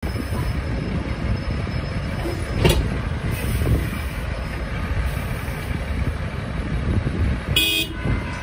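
Low rumble of street traffic, dominated by a semi truck's diesel engine close by, with a single knock about a third of the way in. Near the end a vehicle horn gives one short toot.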